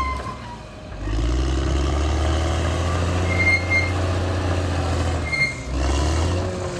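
Caterpillar D6R XL bulldozer's diesel engine running with a deep rumble that drops away briefly near the start and again near the end, with a few short high musical tones over it.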